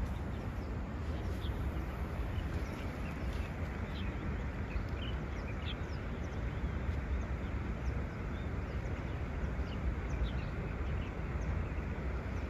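Steady outdoor rumble and hiss, with short high bird chirps now and then.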